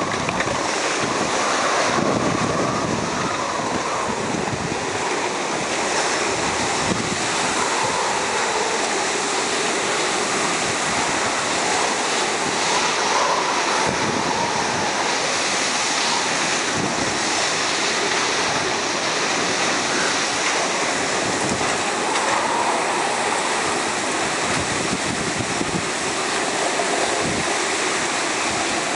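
Typhoon wind blowing hard and without a break, the back-side wind after the storm's centre has passed, rising and falling in slow swells with low buffeting on the microphone.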